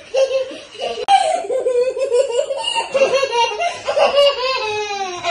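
A small child and adults laughing together, giggles and hearty laughter mixed.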